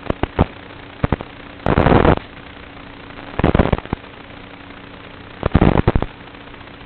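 Small 3-inch FPV quadcopter heard through its own onboard camera microphone: a steady hiss broken by a few sharp clicks and three loud, crackling bursts of noise about a second and a half apart, each about half a second long, as the quad punches out and the mic overloads with prop wash and wind.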